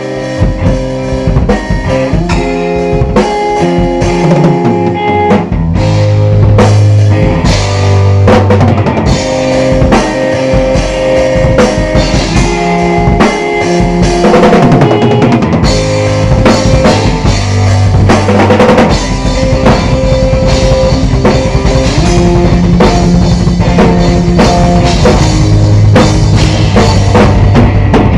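Rock band playing: electric guitar over a drum kit with bass drum and snare rimshots, with no singing; the playing grows fuller and louder about two-thirds of the way in.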